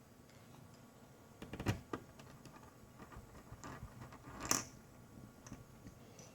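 Light clicks and taps of screws, screwdriver and plastic laptop case parts being handled, with a cluster about a second and a half in and the sharpest click about four and a half seconds in.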